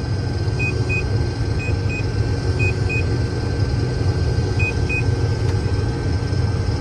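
Combine harvester running with a steady low drone, over which an electronic alarm sounds pairs of short high beeps about once a second, pausing midway, then one more pair. The alarm is the grain tank full warning.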